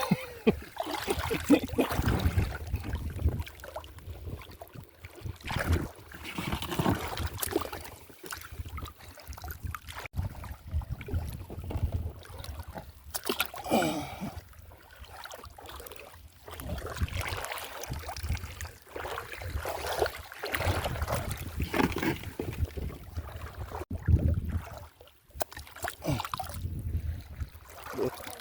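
Water sloshing and splashing in uneven surges every couple of seconds, with a low rumble beneath.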